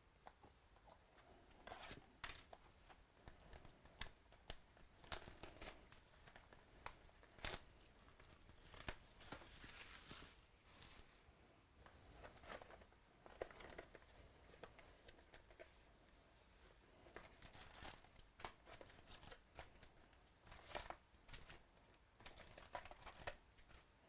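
Packaging of a trading card box being torn open and crinkled: wrapper rips and crackles come in irregular bursts from about two seconds in until near the end.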